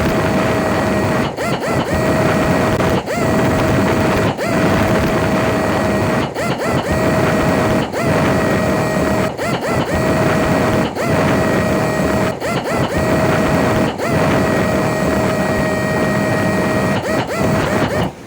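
Buffing machine running with a steady whine over a rushing noise, the sound dipping briefly about every second and a half, then cutting off near the end.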